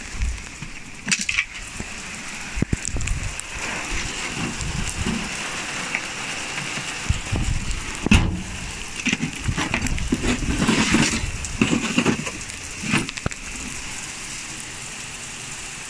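Heavy rain falling steadily on car bodywork and paving, with irregular knocks and rustles close to the microphone. The sharpest knock comes about eight seconds in.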